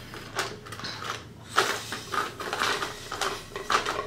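A person sipping a drink through a straw, the sucking and swallowing coming in irregular noisy bursts, the sharpest about a second and a half in.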